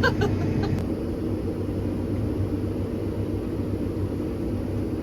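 Farm vehicle engine running with a steady low drone, heard from inside the cab, with a few light clicks in the first second.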